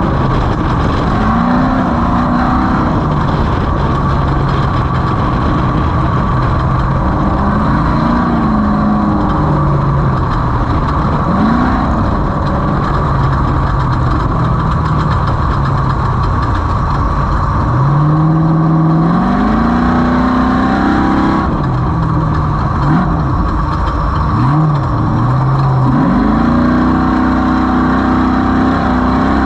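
Off-road race vehicle's engine under way, its pitch climbing and falling again and again as it accelerates, shifts and lets off, over a steady noisy rumble.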